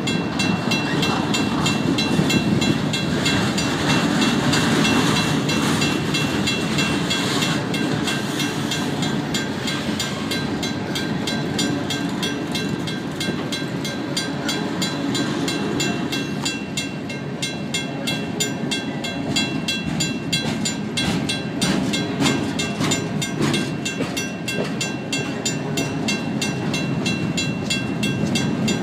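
Empty freight cars rolling past with steady wheel rumble and clatter, while the crossing signal's mechanical bell rings on without a break.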